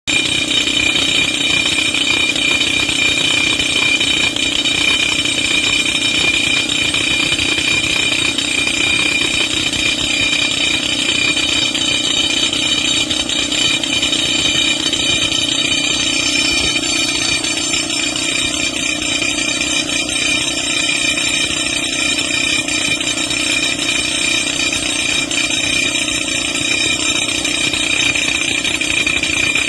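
Y018 pneumatic rock drill running continuously: loud, rapid hammering with an air-exhaust hiss and a steady high-pitched whine, unbroken throughout.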